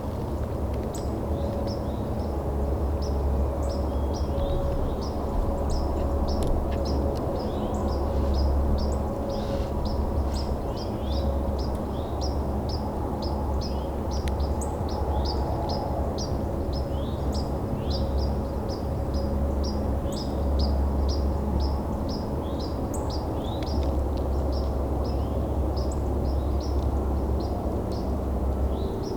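A bird chirping over and over, about two to three short calls a second, over a steady low rumble.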